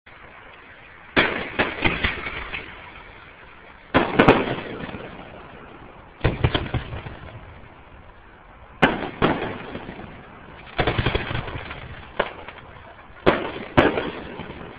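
Aerial fireworks shells bursting overhead: sharp bangs, often in pairs or quick clusters, come every two to three seconds, each trailing off in a rumbling echo. The recording is dull and muffled through a mobile phone's microphone.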